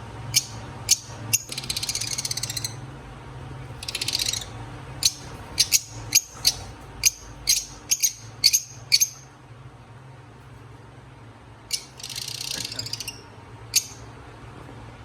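Lovebirds calling: a run of short, sharp high-pitched chirps, thickest about five to nine seconds in, and three bursts of rapid chattering trills. A steady low hum runs underneath.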